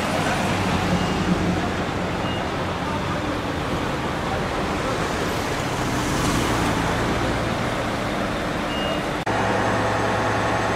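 Street traffic noise as vehicles drive past, a pickup truck among them. About nine seconds in the sound changes abruptly to the steady hum of an idling engine, from a Nissan rescue SUV standing close by.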